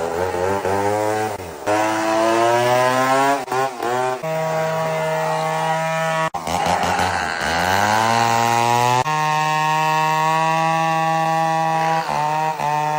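A woman's long, loud burps, about six in a row. Some glide in pitch and others hold one steady, buzzy pitch for two or three seconds before breaking off.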